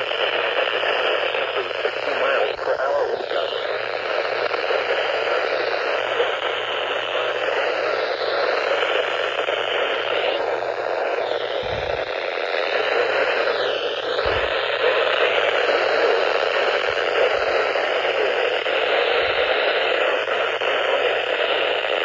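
Midland NOAA weather radio giving out a steady static hiss with no clear speech coming through, with a few faint low bumps.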